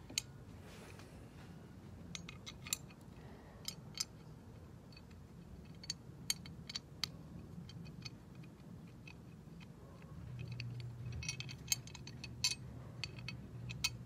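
Light metallic clicks and taps of bolts and a steel mounting bracket being worked into place by hand, scattered through, with a denser run of clicks near the end over a faint low hum.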